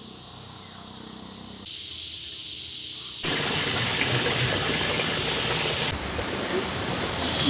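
Steady outdoor rushing noise that jumps to new levels at several abrupt cuts, louder from about 3 seconds in.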